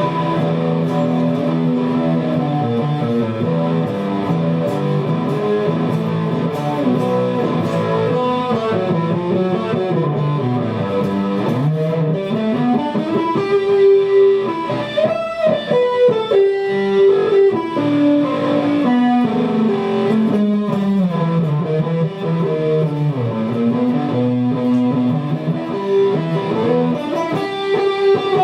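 Music led by electric guitar, with sustained notes and melodic lines moving up and down.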